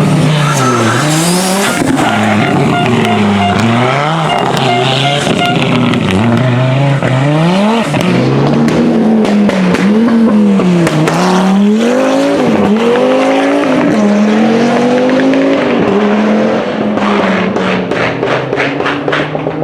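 Audi Quattro rally car's five-cylinder engine revving hard, its pitch climbing and dropping again and again. A rapid series of sharp pops comes near the end.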